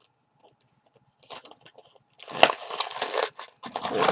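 Box packaging of a handcuff set being torn open and crumpled by hand: a short crackle a little over a second in, then two longer stretches of dense crinkling and tearing.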